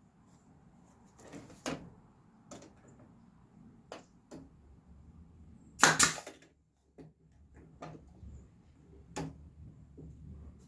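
Wooden picture-frame pieces knocking and clacking on the bench as they are handled and fitted, about ten scattered sharp knocks with one loud double bang about six seconds in.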